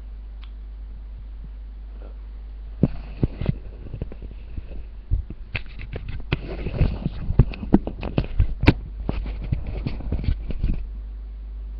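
Handling noise on a webcam's microphone: a run of knocks, bumps and rubbing for about eight seconds, starting about three seconds in, over a steady low hum.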